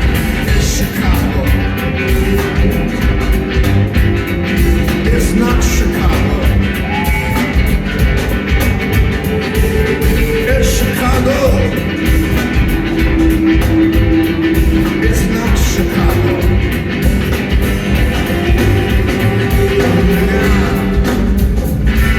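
A rock band playing live, with singing.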